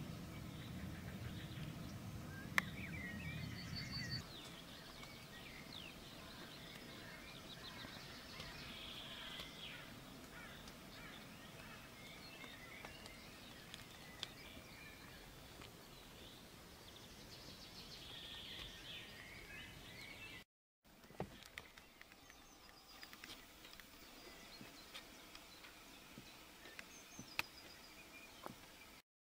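Faint outdoor ambience with scattered bird calls and chirps, which cut out abruptly about two-thirds through and give way to quieter hiss with a few clicks.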